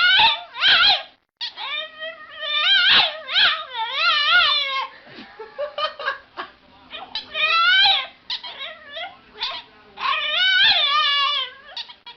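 A dog whining and howling in a series of high-pitched calls that waver up and down in pitch, with short breaks between them.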